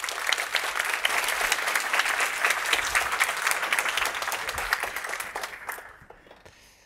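Audience applauding: many hands clapping steadily, then dying away about six seconds in.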